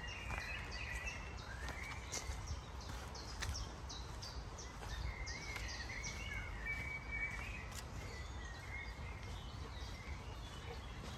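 Woodland birdsong: several birds singing in short high chirps and warbling phrases, over a steady low rumble.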